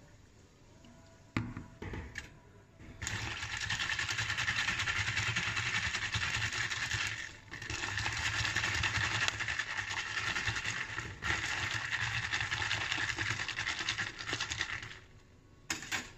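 Sparkling water poured over ice into a plastic cup, a steady fizzing hiss with two brief pauses in the pour. A couple of light knocks of ice and cup come before the pour starts.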